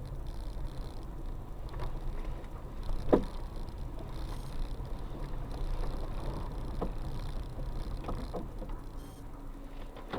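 Car driving over an uneven road with a steady low rumble, and several sharp metallic knocks from underneath, the loudest about three seconds in. The driver takes the knocks for a loose piece of metal or the skid plate catching on something, not the suspension.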